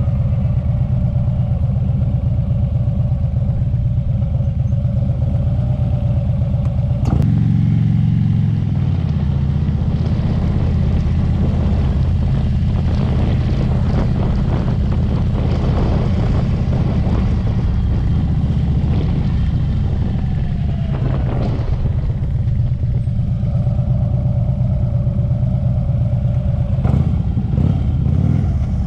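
Motorcycle engine running at low speed, with the engine note changing about seven seconds in as it pulls away or shifts gear.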